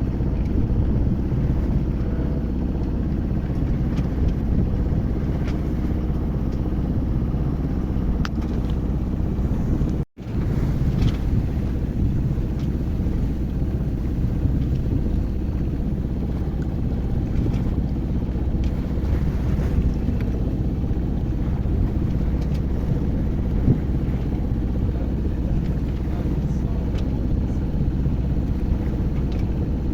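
Steady low rumble aboard a small boat under way, cut by a brief drop to silence about ten seconds in.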